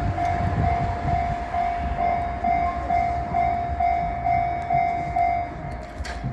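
Japanese railway level-crossing alarm ringing its pulsing electronic tone about twice a second, then stopping about five and a half seconds in. Under it is a low rumble of rail traffic, and a single click comes near the end.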